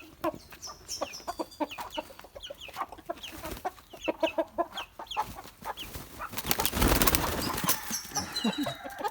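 Young chickens clucking and peeping in short calls, with a loud burst of wing flapping for about a second and a half around seven seconds in as a bird flies off.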